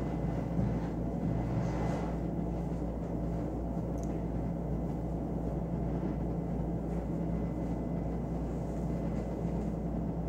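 Steady low room hum with no speech and no distinct events.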